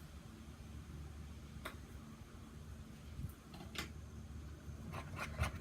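Faint steady low hum with a few scattered sharp clicks, then a quick run of clicks near the end.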